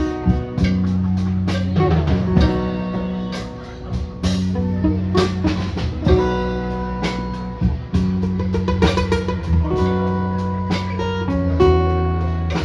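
Live amplified guitars playing an instrumental passage: plucked and picked notes over a steady, sustained low bass line.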